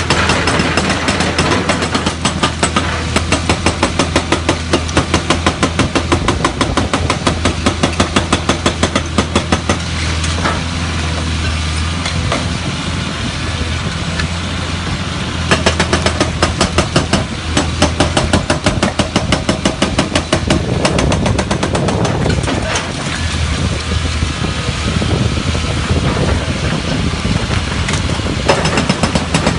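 Atlas Copco hydraulic breaker on a Caterpillar excavator hammering rock, a run of rapid, evenly spaced blows over the excavator's steady diesel engine drone. The hammering stops and starts, easing off about ten seconds in and again more unevenly near the end.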